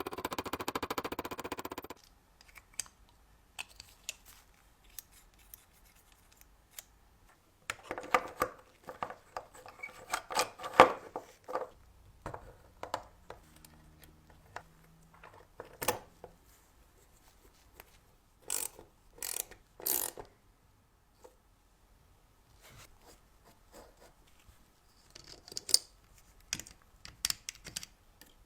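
Hand tools working small metal toy parts at a bench: scraping and rubbing strokes, sharp clicks and taps, and three short hissing bursts past the middle.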